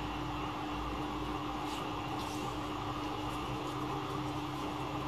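Steady background hum and hiss with a constant low tone, the running noise of a machine such as an air conditioner or fan.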